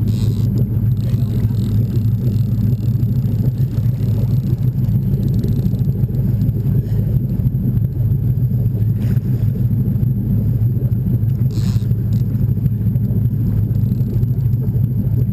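Boat motor running with a steady, even low rumble. Two brief hisses come through about nine and twelve seconds in.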